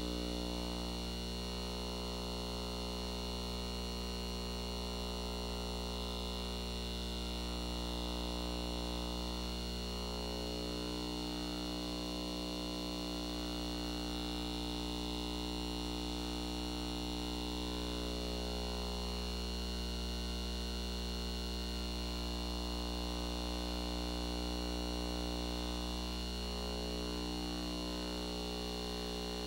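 Steady electrical hum and buzz, many steady tones sounding together at an even level throughout.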